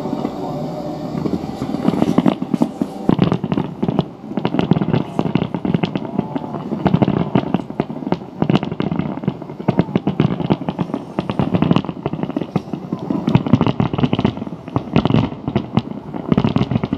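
A dense fireworks barrage: many aerial shell bursts and launches in quick, overlapping succession, thickening about two seconds in.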